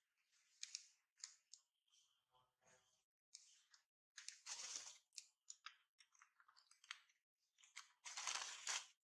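Faint scuffling and rustling in irregular short bursts with small clicks, from a macaque mother grappling with her squirming infant on a rock. The longest bursts come about four and a half and eight and a half seconds in. A brief low pitched sound comes about two and a half seconds in.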